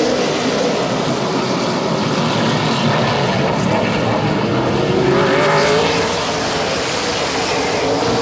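Super late model race cars racing in a pack around an oval track, their V8 engines running together in a dense, steady drone. One engine note rises in pitch about five seconds in.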